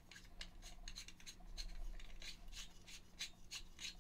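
A nut being unscrewed by hand along the threads of a new chrome sink drain body: faint, quick, uneven ticks and scrapes of metal on metal.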